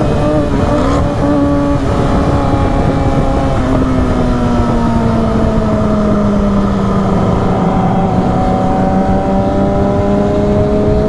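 A car engine's steady drone, its pitch sliding down over a few seconds and then holding, over a heavy low rumble.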